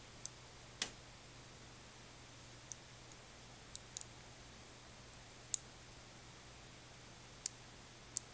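Cold Fusion neodymium magnet spheres clicking as single balls snap onto a small cluster: about ten sharp clicks at irregular intervals, with a quick run of three about four seconds in.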